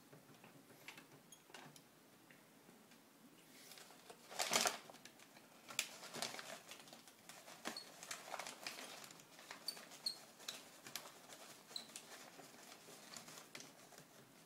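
Small clicks, taps and scrapes of a laptop LCD panel and its thin metal side bracket being handled and tilted forward out of the plastic lid, with one louder scrape about four and a half seconds in.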